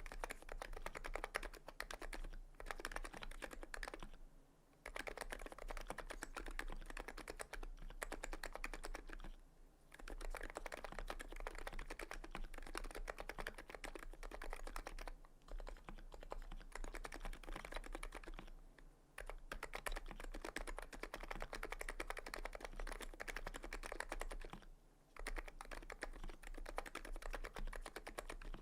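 Continuous typing on a TX66C R2 electrocapacitive keyboard with FC660C Silent internals, 45 g Krytox-lubed springs and KBDfans EC HiPro keycaps: a fast, dense stream of keystrokes that breaks off briefly about five times.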